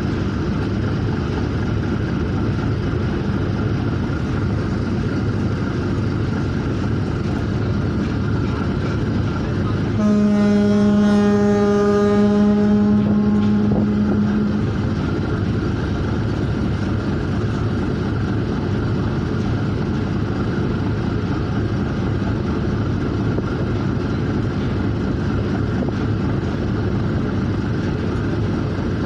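Steady drone of a river vessel's engine with water and wind noise. About ten seconds in, a ship's horn sounds one long blast of about four seconds.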